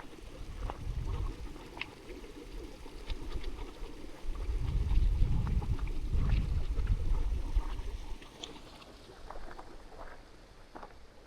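Footsteps on a rough path: scattered short crunches and clicks, with a strong low rumble that swells from about four and a half seconds in and fades near eight seconds.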